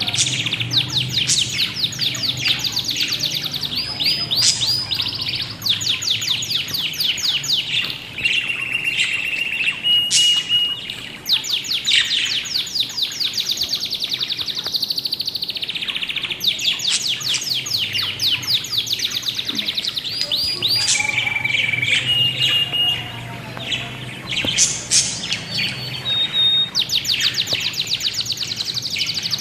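Budgerigars chirping: rapid runs of high, evenly repeated chirps, broken by a few short held whistled notes.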